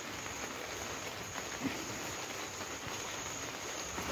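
Quiet, steady background noise with a faint, high-pitched steady tone and no distinct event.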